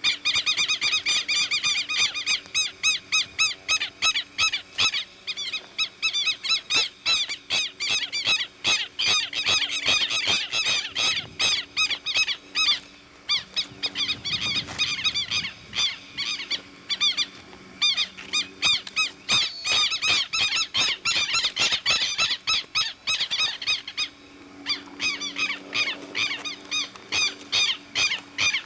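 Animal calls: a rapid, unbroken run of short, high, squeaky chirps, several a second, thinning briefly about halfway through and again near the end.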